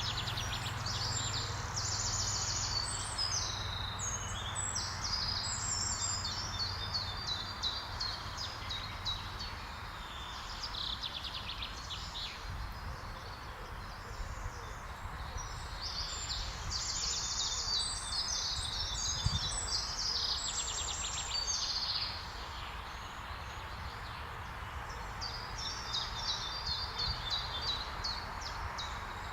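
Songbirds singing outdoors: three bouts of rapid, high, repeated notes over a steady hiss of ambient background noise.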